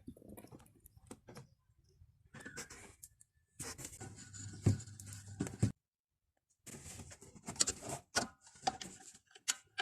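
Small metallic clicks and scrapes of a socket wrench tightening the coupling bolt that joins a twin-tub spin dryer's drum to its motor shaft, with a short silent break midway.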